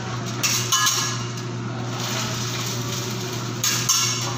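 Metal spatula clinking and scraping on a steel teppanyaki griddle, in two short bursts of metallic clatter: one about half a second in and one near the end. A steady low hum runs underneath.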